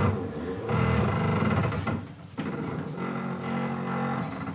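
Stepper motor driving a table saw's blade-tilt mechanism through 3D-printed plastic gears, a steady motor whine that stops for a moment about two seconds in and then runs again. The stepper driver is underpowered for the load, in the builder's view.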